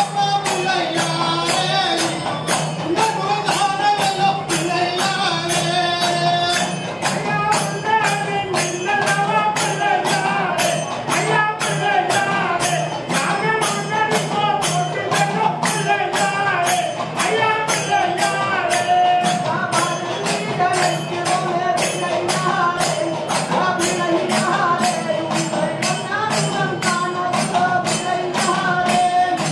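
A group of men singing a Hindu devotional hymn together, with hand-held percussion keeping a steady beat of about two strokes a second.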